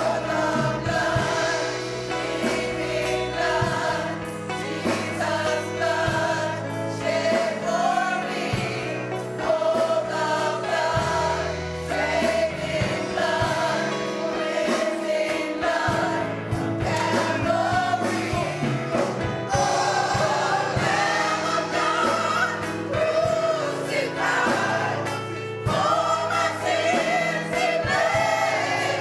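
Gospel choir singing with instrumental accompaniment and a steady bass line.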